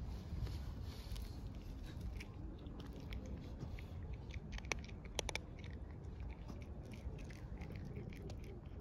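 A cat crunching dry kibble: a run of small, sharp crunches, the loudest a little past the middle, over a steady low background rumble.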